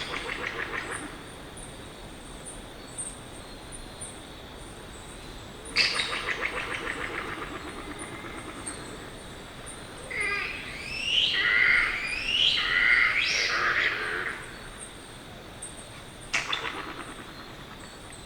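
Yellow-bellied glider calling. Three times, at the start, about six seconds in and near the end, a sudden shriek breaks into a fast gurgling rattle. Between them, around the middle, comes a loud run of warbling, wavering shrieks lasting about four seconds.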